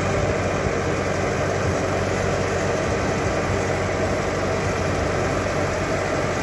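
Bobcat T630 compact track loader's diesel engine running steadily under load as it backs slowly with a heavy oak log on its pallet forks.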